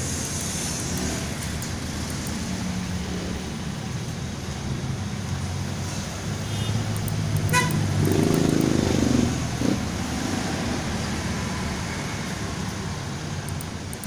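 Steady low hum of motor-vehicle traffic. About seven and a half seconds in there is a sharp click, then a louder swell lasting about a second and a half, with the pitch curving, such as a vehicle passing or sounding its horn.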